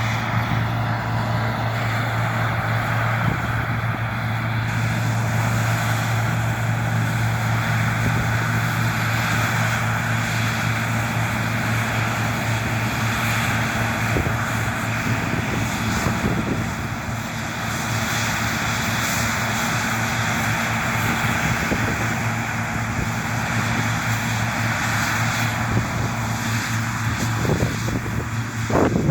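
John Deere T670i combine harvester running, a steady low engine drone with the rush of its machinery. A short rising sound comes near the end.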